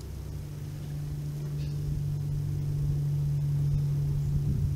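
A steady low hum over a faint hiss, growing somewhat louder toward the end.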